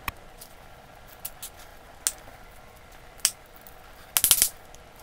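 Insulated electrical wires being handled and bunched together in a plastic junction box: a few sharp ticks, then a louder burst of rustling and clicking about four seconds in.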